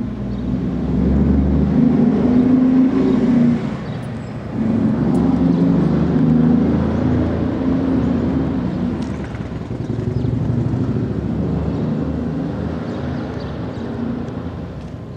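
Darley STH-10 rotating outdoor warning siren winding down at a low pitch, a drone that swells and dips in loudness and slowly fades.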